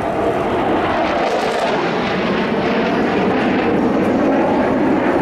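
Military jets flying past overhead: loud, steady jet-engine noise with a tone that falls in pitch over the first couple of seconds as they pass.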